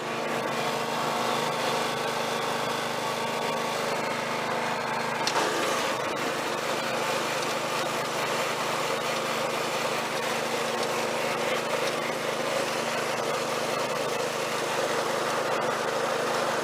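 Snapper rear-engine riding mower's small engine running steadily as the mower drives along, with a hiss of rolling and wind noise over it.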